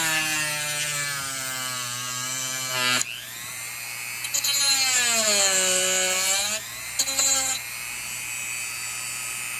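Small electric rotary tool with a cut-off disc cutting into wood. Its high whine sinks in pitch and recovers, then stops suddenly about three seconds in. It starts again for a second run with another dip in pitch, then gives two short bursts and stops.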